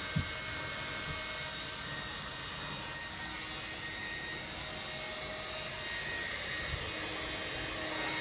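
Hair dryer blowing steadily, with a short low thump just after the start and another about seven seconds in.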